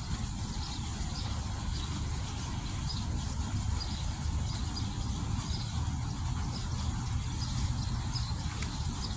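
Fountain jets splashing into a stone basin: a steady rush of falling water over a strong, steady low rumble.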